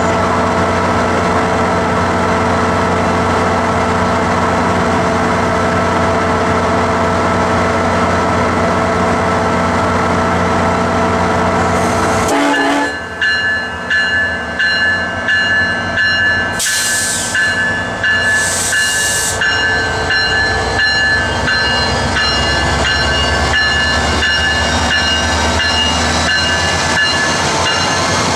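A SunRail commuter train's diesel locomotive, an MPI MP32PH-Q, running at the platform with a steady hum. About halfway through, the low hum cuts out and a high ringing tone with a regular beat takes over, with two short hisses of air, as the train starts to move off.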